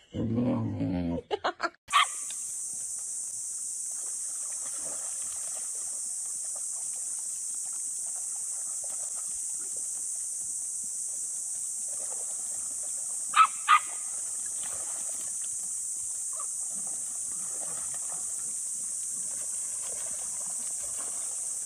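A dog growling and whining for about the first second. It is followed by a steady high-pitched hiss with faint scattered sounds, and two short sharp calls close together about thirteen and a half seconds in.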